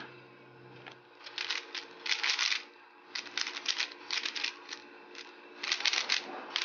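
3x3 Rubik's Cube being turned quickly, its plastic layers clicking and clattering in short runs of rapid turns with brief pauses between them.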